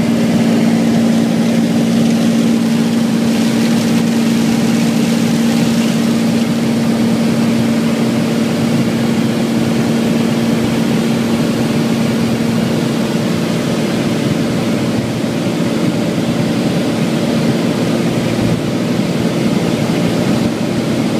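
Light airplane's piston engine and propeller droning steadily in cruise, heard inside the cockpit as a loud, even hum over cabin noise.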